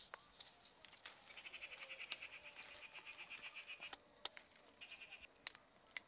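Crisp snaps and leafy rustling as the succulent stems of adamant creeper (pirandai) are pulled and broken off by hand. Behind them, a fast pulsing animal call runs for a couple of seconds and comes once more briefly near the end.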